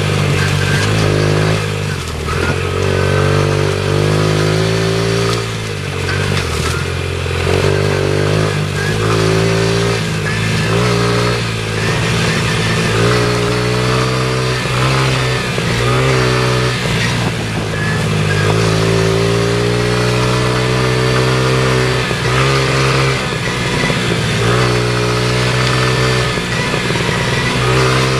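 Dirt bike engine revving up and down as the bike is ridden along a bumpy dirt trail, its pitch climbing under throttle and dropping away again every few seconds.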